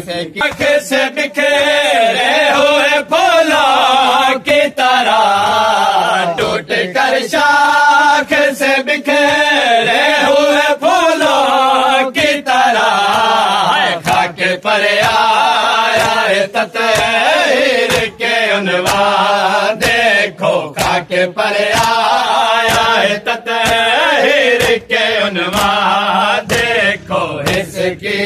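Men chanting a noha in unison, a Shia lament for mourning. Repeated sharp slaps of hands beating on chests (matam) run through the chant to keep its beat.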